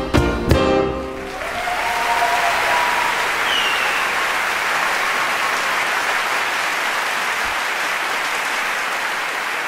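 A live band's tune ends on a few final hits about a second in, then an audience applauds steadily, with a few whistles early in the applause.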